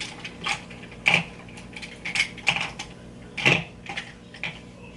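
Makeup containers and brushes being picked up and set down on a table: a string of sharp plastic clicks and clatters, about half a dozen, the loudest a little after one second in and about three and a half seconds in.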